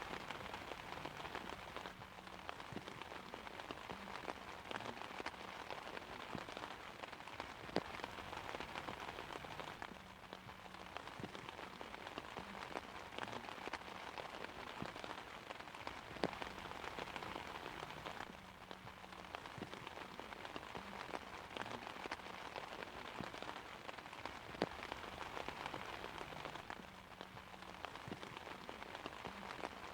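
Steady rain falling on an umbrella: a dense, even hiss of drops, with scattered sharper taps standing out now and then.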